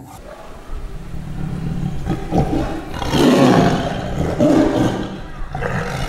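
Lions roaring, low and rumbling, loudest from about two to five seconds in.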